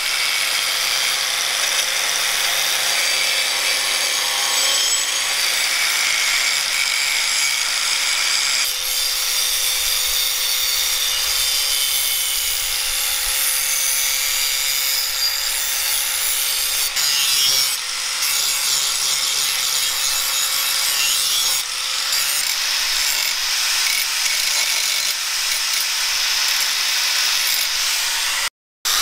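Handheld electric angle grinder with an abrasive disc grinding the edge of a steel circular-saw-blade knife blank: a steady motor whine under the hiss of the disc on the steel. It dips briefly twice about two-thirds through and cuts out sharply for a moment just before the end.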